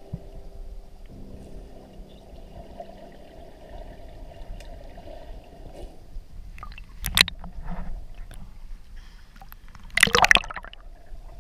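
Muffled underwater sound of sea water against the camera, then splashing and gurgling as the camera breaks the surface: a short splash about seven seconds in and a longer, louder one about ten seconds in.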